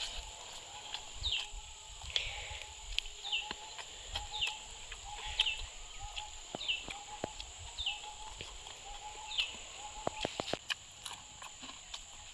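A bird's short call, repeated about once a second, over a steady high-pitched insect drone, with a few sharp clicks near the end.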